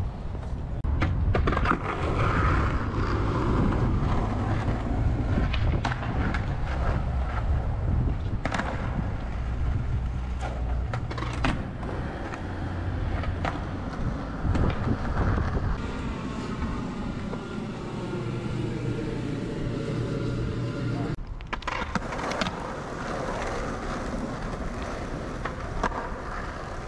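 Skateboard wheels rolling over rough asphalt with a steady low rumble, broken now and then by sharp clacks of boards popping and landing.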